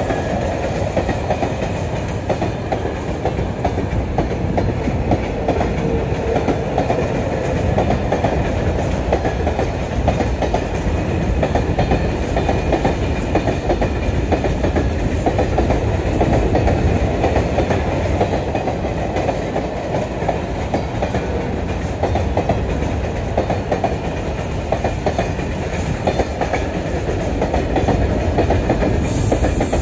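Freight wagons (flat wagons and hopper wagons) rolling past on the track, their wheels clacking steadily over the rail joints above a continuous rumble.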